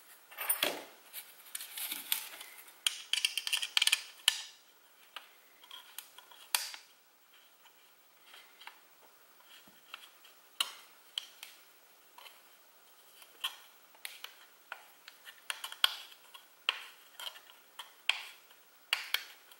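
Small irregular clicks and rattles of an Allen key and hardware against 3D-printed plastic and acrylic parts while an M4 bolt is turned into a nylon lock nut. They come thickest a couple of seconds in.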